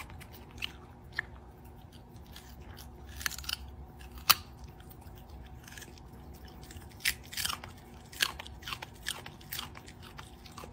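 Small dog crunching and chewing a raw carrot: irregular sharp crunches, the loudest about four seconds in, with a cluster of them between about seven and nine seconds.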